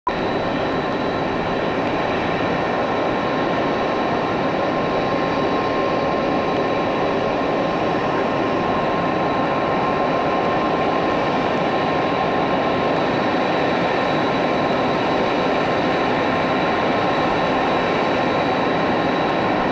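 Airbus A380's four turbofan engines (Engine Alliance GP7200s) running at taxi idle: a steady rush of jet noise with a thin, high whine held over it.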